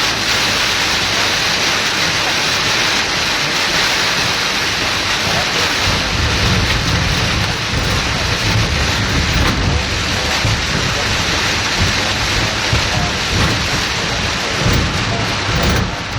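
Heavy rain pouring down steadily, with a low rumble coming in about six seconds in.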